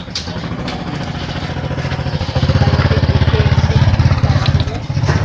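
A small engine running steadily with an even low pulse, getting louder a little over two seconds in.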